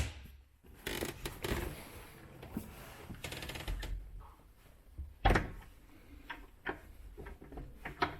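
A boat's stern hatch lid on stiff gas struts being lowered by hand, with light knocks and rattles of handling and a single heavy thud about five seconds in as it shuts.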